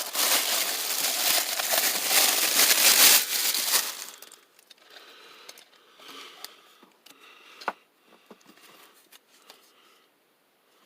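Packaging being crumpled and handled: loud crinkling for about four seconds, then only faint rustles and small clicks, with one sharper click near the end.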